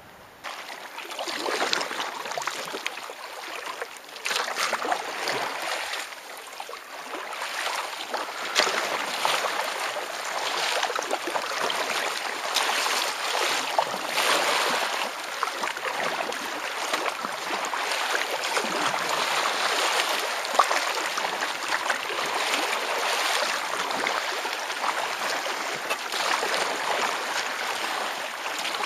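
Choppy lake water splashing and sloshing against a kayak's hull as it is paddled, with irregular splashes from the paddle blade. The sound starts about half a second in and then keeps up an uneven splashing hiss.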